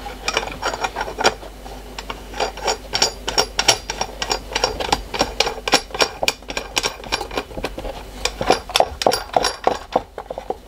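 Ratchet spanner clicking in quick runs of several sharp clicks a second as a nut is tightened onto a brass nozzle fitting through the turbine's plastic casing, with a short pause near the end.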